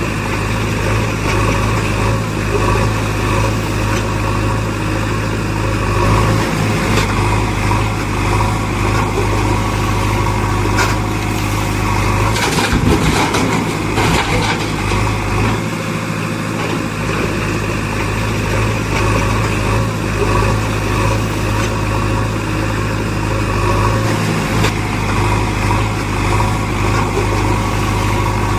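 A steady engine-like hum runs throughout, with a brief spell of knocks or clatter about halfway through.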